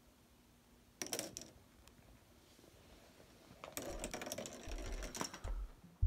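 A plastic ball rolling and clattering over a K'nex ball machine's plastic track and grid panels: a short rattle of clicks about a second in, then a longer run of rapid clicks from about four seconds, with a few dull low thumps.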